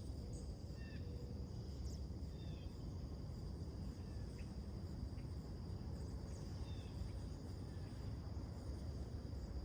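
Scattered short, faint bird chirps, many of them small downward slurs, repeating every second or so over a steady low rumble and a thin, constant high drone of insects.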